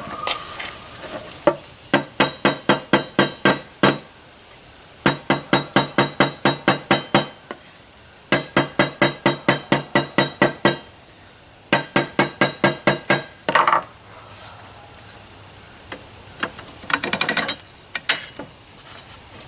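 Small ball peen hammer tapping the end of a steel pipe post, reshaping an egged-out, wallowed pipe end to close it down. The strikes come in four quick runs of ringing metallic blows, about four to five a second, with a couple of single knocks near the end.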